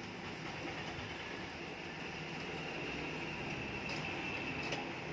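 Epson L8050 inkjet printer shutting down at the press of its power button: a steady mechanical whir with a faint high whine from its motors, and two sharp clicks near the end as the mechanism parks.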